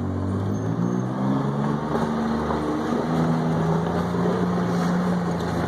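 Gator utility vehicle's engine running under way in snow. Its note climbs over the first few seconds, then holds steady.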